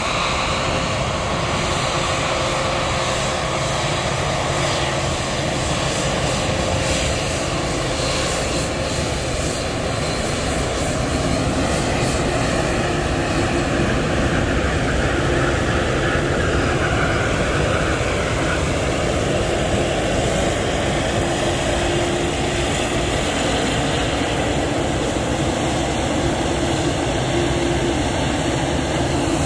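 Jet engines of a Boeing 787 Dreamliner running at taxi power as the airliner taxis past, a steady, continuous jet noise.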